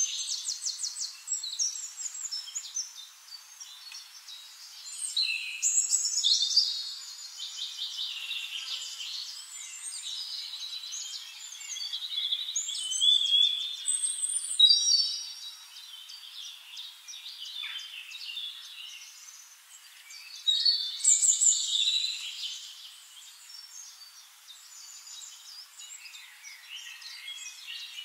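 Several wild birds singing and chirping at once, with busy overlapping trills and chirps in bouts that rise and fall every few seconds.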